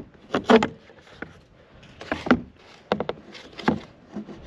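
Plastic recovery board knocking and scraping against its mounting bolts and the truck's bed cap as it is slid back onto the brackets, about five or six separate clunks.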